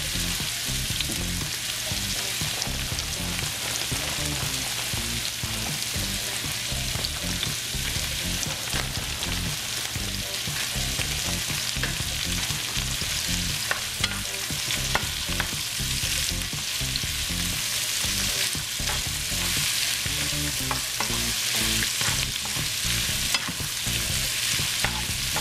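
Vegetables (onions, carrots, celery and snow peas) sizzling steadily in hot oil in a pan, with scattered clicks of a utensil stirring them.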